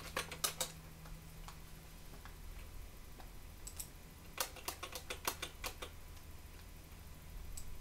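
Computer keyboard keystrokes: a few separate taps near the start, then a quick run of about eight keystrokes about four and a half seconds in, typing a login name and password.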